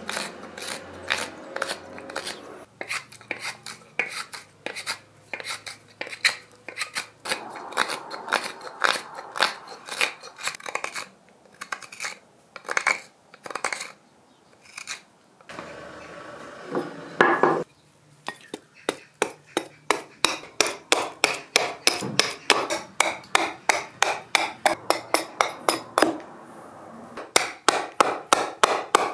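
Hook knife carving out the hollow of a small wooden bowl: repeated short slicing cuts into the wood, about three a second in the later part, with brief pauses and one longer, louder cut a little past halfway.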